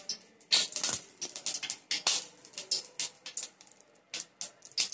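Oil heating in an aluminium kadai, crackling and spitting in irregular sharp pops, with a couple of louder bursts about half a second and two seconds in.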